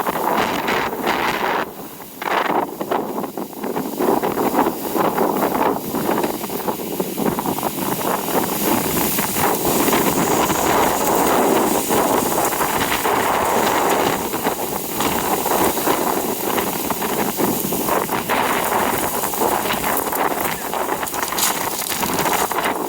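Strong wind gusting and buffeting the microphone in a dense, steady rush of noise that swells and eases, with a brief lull about two seconds in.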